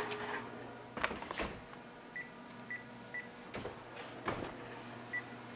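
Metal baking pan clattering and knocking against the wire oven rack as it is slid into a wall oven, with about five short high electronic beeps from the oven's control panel in between.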